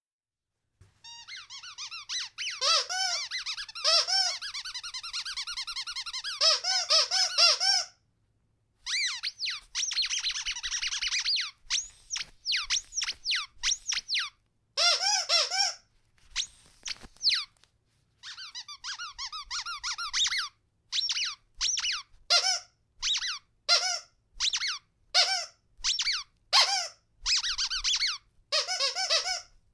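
Rubber squeaky dog toy squeezed over and over, giving high, wavering squeaks. There is a long unbroken run of squeaking first, then after a short pause a string of shorter, separate squeaks.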